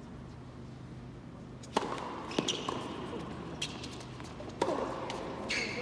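Tennis ball strikes echoing in a quiet indoor arena: a few separate sharp pops from the ball bouncing on the hard court and coming off strings, spaced about a second apart, with brief squeaks of tennis shoes on the court surface.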